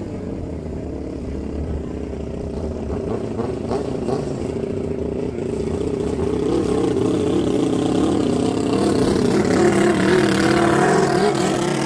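Racing longtail boat engine running, its pitch wavering as it is revved, growing louder through the second half.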